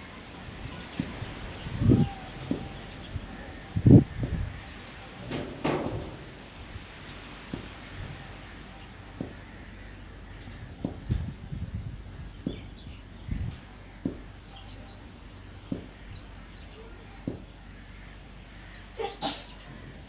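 A cricket chirping steadily: one high, evenly pulsed trill of about five chirps a second that holds one pitch throughout. A few dull knocks come in the first few seconds, the loudest about four seconds in.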